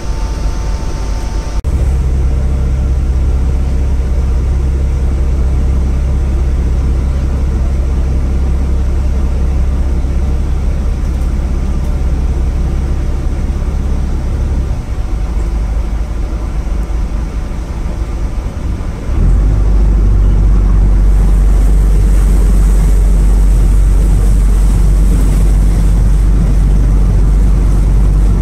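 Small passenger ferry's engine running with a steady low drone, heard from the open side deck. It eases off briefly, then gets louder about nineteen seconds in as the boat picks up, with more rushing wind and water noise after that.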